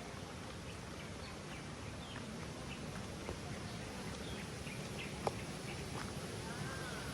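Forest birds giving scattered short chirps over a steady background hiss, with one sharp click about five seconds in.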